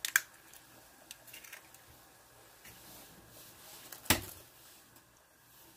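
A brown egg cracked by hand over a glass bowl: a sharp crack at the start, a few small clicks as the shell is pulled apart, then a louder knock about four seconds in.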